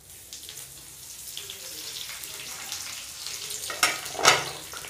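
Curry leaves and dried red chillies sizzling in hot oil in a steel kadhai for a tadka (tempering). The hiss builds slowly, with a couple of sharp crackles about four seconds in.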